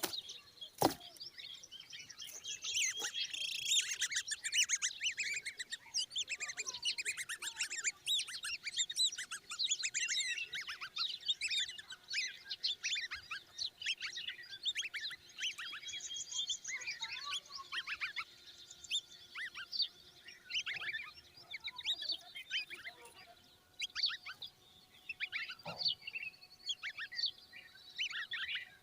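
Common babbler chicks calling hungrily, a dense chorus of rapid, overlapping high chirps. A sharp click comes just under a second in.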